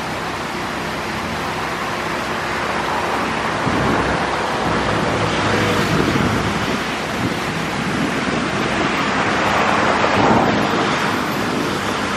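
Water jets of an ornamental fountain splashing steadily, a constant rushing hiss that grows a little louder about three seconds in, with wind buffeting the microphone.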